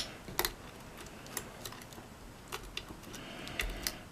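Lock picking in a mortise lock cylinder: the metal hook pick and tension bar give a sharp click at the start, then a handful of lighter, irregular ticks and clicks as the pick works the pins.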